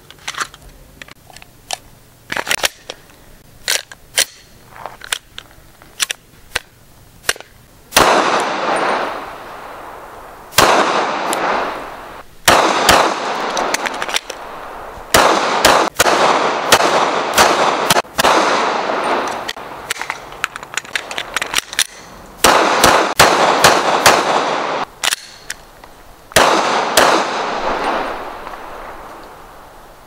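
Glock 19X 9mm pistol: sharp metallic clicks of loading and handling for the first several seconds, then many gunshots, some single and some in quick strings. Each shot has a long echoing tail.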